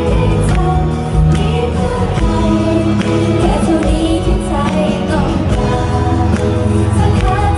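Girl group of young women singing together into microphones over pop music with a steady drum beat, amplified through the stage sound system.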